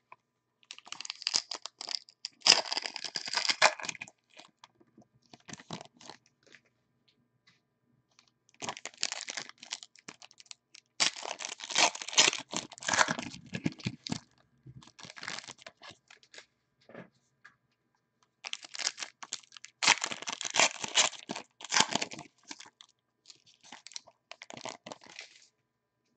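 Foil football trading-card packs being torn open, the wrappers tearing and crinkling in three bouts of a few seconds each, with short pauses between.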